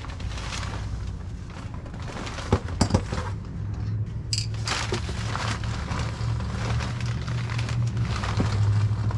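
Boxes and plastic-wrapped items being handled: a few knocks about two and a half to three seconds in and scattered crinkling of packing material, over a steady low hum.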